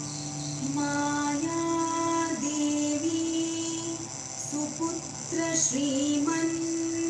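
A woman's voice singing a devotional bhajan melody, entering about half a second in, over a steady held drone.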